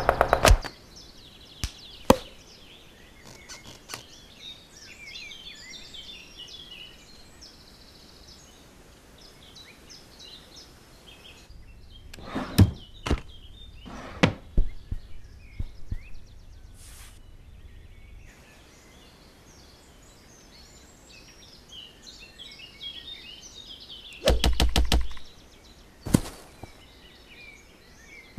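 Birds chirping over a faint background hiss, broken by scattered single knocks. About 24 seconds in comes a quick run of evenly spaced knocks: a woodpecker hammering.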